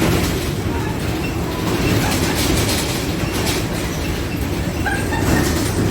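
Bus interior rattling loudly as it drives: a steady low rumble with constant clatter from the loose floor and fittings, and a few brief squeaks.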